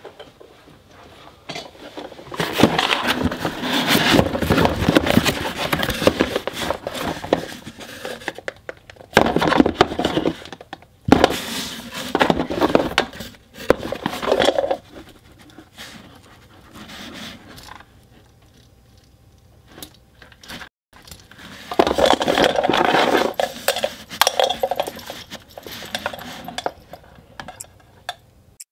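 Hands rummaging through a cardboard box of small objects: items knocking, scraping and clattering against each other and the cardboard, in three bouts with quieter pauses between.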